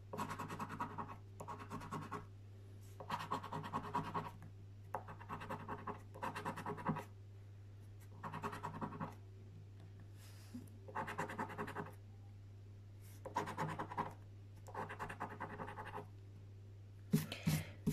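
A coin scratching the latex coating off a paper Mega Cashword scratchcard. It comes in repeated bursts of rapid strokes, each about a second long, with short pauses between them.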